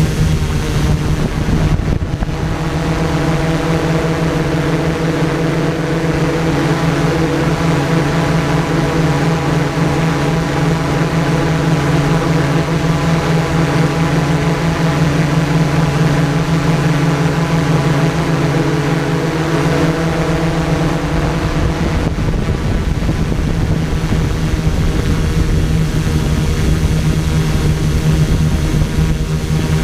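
A drone's electric motors and propellers humming steadily, heard from the craft's own onboard camera, in one held pitch that shifts slightly about two-thirds of the way through as it holds position in the air.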